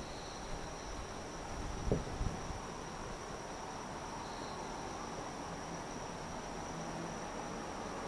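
Steady high-pitched trilling of night insects, with a single dull low boom about two seconds in, a distant firework shell bursting.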